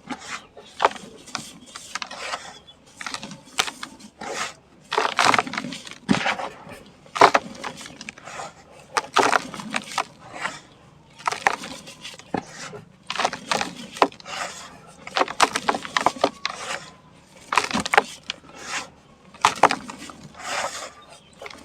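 Dry sand-and-cement chunks crumbling, with irregular sharp cracks and gritty breaking sounds, some louder snaps among softer crumbles.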